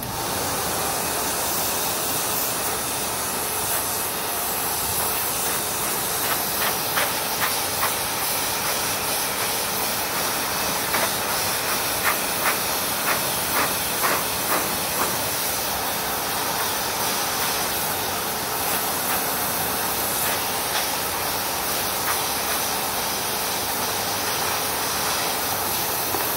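High-velocity pet dryer blowing a steady stream of air through its hose nozzle into a Pomeranian's thick double coat, blowing out the undercoat. Partway through, a run of short sharp taps about twice a second sounds over the hiss.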